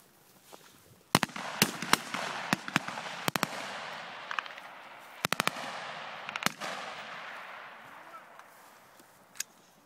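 Live rifle fire: about a dozen sharp shots, single and in quick pairs with a fast burst of four about five seconds in, each trailing a long echo. After a lull there is one last shot near the end.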